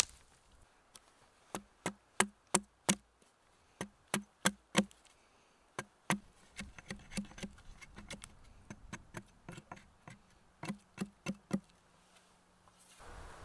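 A hatchet chopping a point onto a green wooden stake whose tip is braced on a log: sharp, knocking wood chops in quick runs of four or five, about three a second, with a stretch of softer strokes in the middle.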